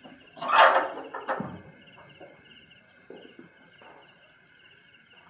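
Crickets chirping in a steady, fast pulsing trill. About half a second in, a loud rustling noise lasts about a second.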